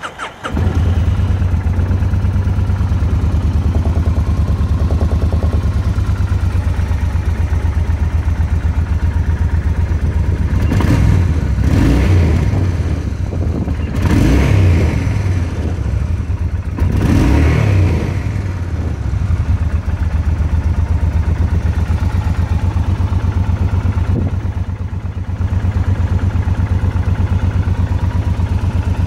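2005 Kawasaki Vulcan 1600 Nomad's V-twin engine on a cold start: it fires up in the first second and settles into a steady idle. Around the middle it is revved four times, each blip rising and falling back to idle.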